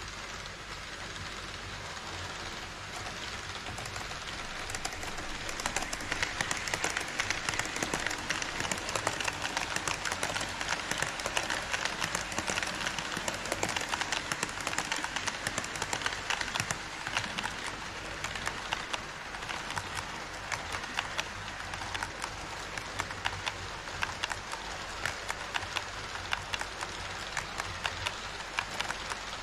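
HO-scale Twilight Express model train rolling past close by on KATO Unitrack. A steady rushing of wheels grows louder about five seconds in, with a continual patter of sharp clicks as the wheels run over the rail joints.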